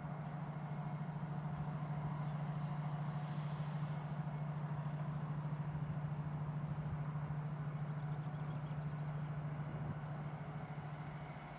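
A steady low engine hum out of sight, holding one pitch and dipping slightly near the end, over a faint outdoor background.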